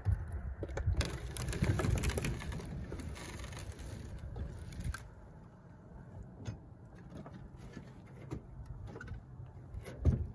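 Scattered knocks, clunks and rattles of someone handling gear at a pickup bed, busiest in the first few seconds and fainter after, with a few sharp clicks near the end as he steps up into the bed.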